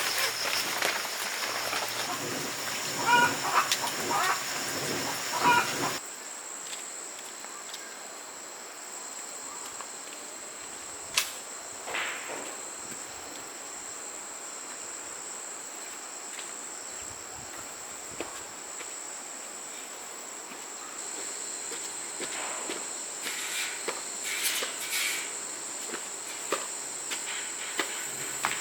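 Outdoor ambience dominated by a steady, high-pitched insect drone, typical of crickets or cicadas. In the first few seconds a few short bird calls sound over a louder background, then the sound changes abruptly and the insect tone continues with occasional faint clicks.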